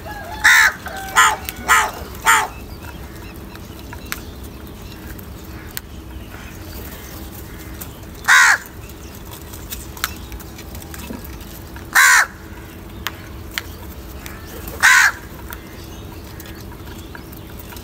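House crows cawing as they feed: a quick run of four caws in the first couple of seconds, then single caws several seconds apart.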